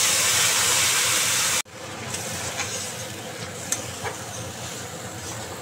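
Onion paste dropped into hot oil in a kadai, sizzling loudly for about a second and a half. After an abrupt break it sizzles more quietly while a steel spatula stirs it, with a few clicks of the spatula against the pan.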